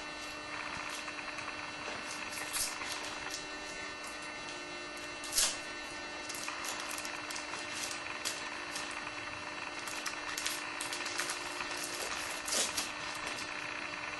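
Trading cards being handled: slick chromium cards slid and flicked against one another in a run of short rustles and clicks, with a sharper snap about five seconds in.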